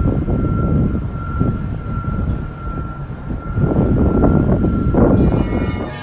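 A loud, uneven low rumble with a faint steady high whine over it; about five seconds in, bagpipes strike up with a sustained tone.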